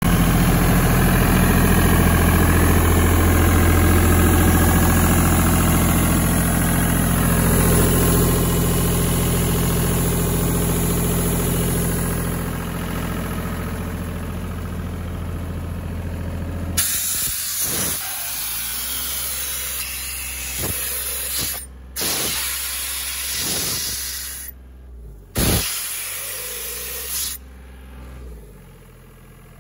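Diesel engine of a 1994 Atlas Copco XAS65 towable air compressor running at a steady speed, with a strong hiss over it. About seventeen seconds in, the sound turns quieter and uneven, with brief drop-outs, while the engine keeps running.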